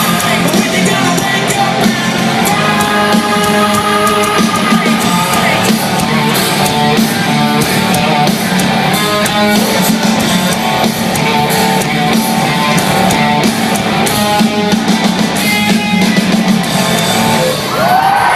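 Live hard rock band playing loudly in concert: distorted electric guitars, bass and drum kit, recorded from the audience.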